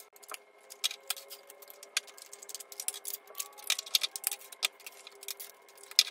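Plastic butter and margarine tubs being opened and handled: irregular sharp clicks, taps and crinkles as lids are pried off and seals peeled.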